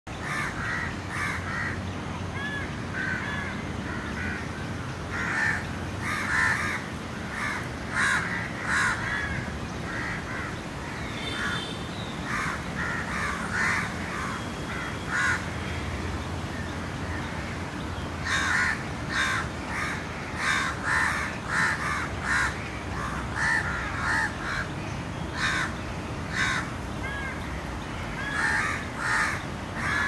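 Ashy prinia calling: a long series of short, harsh repeated notes in bouts, with pauses about ten seconds in and again around sixteen seconds in.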